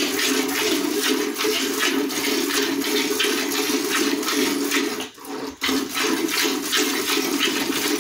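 Hand-milking: jets of milk squirting from a cow's teats into a steel pail partly full of milk, a steady frothy, watery hiss made of quick rhythmic squirts. It breaks off for a moment about five seconds in.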